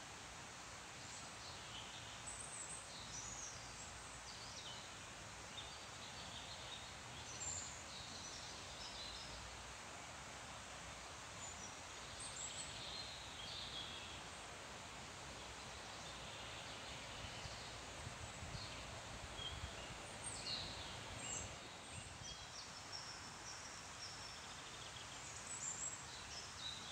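Many small songbirds chirping and twittering in short calls scattered throughout, over a faint steady hiss of rustling leaves.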